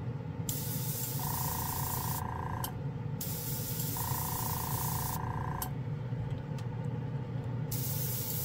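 Gaahleri Ace airbrush blowing air in three spells of hissing as the trigger is held and let go. A steady mid-pitched tone comes in during each spell, over a steady low hum from the Gaahleri airbrush compressor and the spray booth fan.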